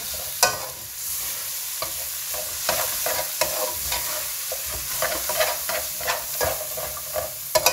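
Onions and ground spices sizzling in hot oil in a stainless steel pot while a metal spoon stirs them, scraping and clicking against the pot's base and sides, with a sharper knock about half a second in and another near the end.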